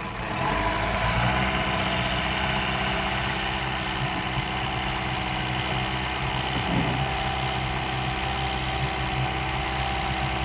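Boat engine running steadily at idle, a little louder from about half a second in.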